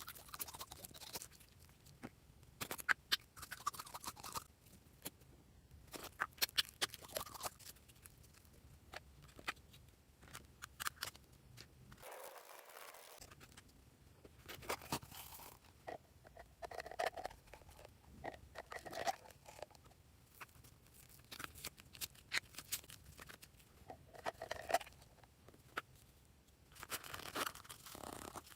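Glossy slime being squished and mixed, giving irregular clusters of sharp, wet clicks and pops.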